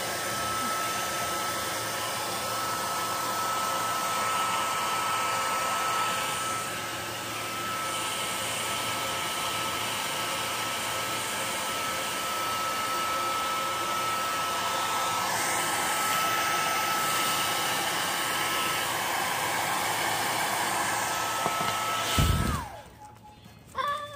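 Hand-held hair dryer blowing steadily, a high whine running through its rush of air. Near the end it is switched off and the whine drops away quickly as it winds down, with a sharp knock at about the same moment.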